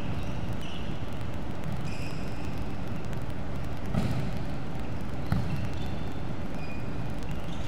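Two thuds of a volleyball being hit during play, about four seconds in and again a second and a half later, echoing in a large indoor hall over steady background noise.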